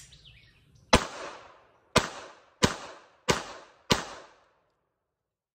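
Five handgun shots fired one after another, the gaps shortening from about a second to just over half a second. Each crack trails off in a short echo.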